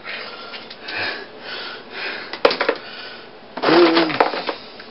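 A person's voice drawing out one sung word with a falling pitch, about three and a half seconds in. Before it come faint rustling and a couple of light clicks.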